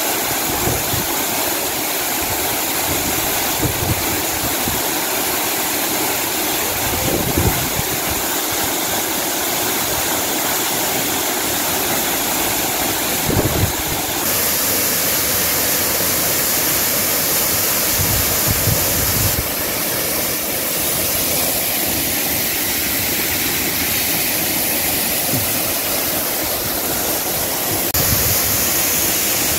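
A large waterfall swollen with monsoon rain, rushing steadily at full flow, with a few brief low thumps.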